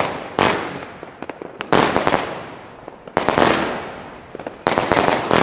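A 100-shot compound firework battery of 20 mm tubes firing shots that burst into gold-tailed stars. There are four sharp bangs, about one every second and a half, each dying away over about a second.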